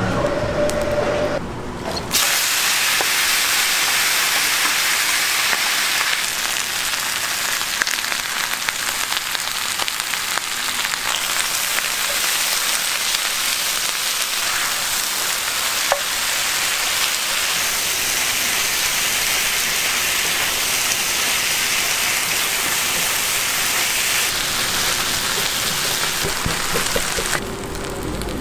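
Chicken dakgalbi frying on a hot cast-iron plate, a steady hissing sizzle. It starts about two seconds in and stops shortly before the end.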